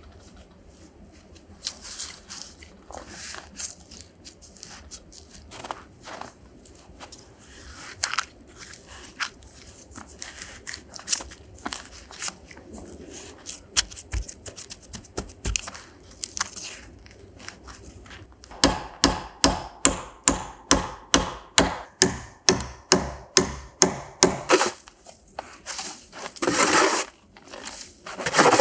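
Caulking a log wall: fibre rustling and being pushed into the cracks between the logs, then a tool driven into a crack with a steady run of sharp taps, about two or three a second. Near the end, a wooden snow shovel scrapes through snow.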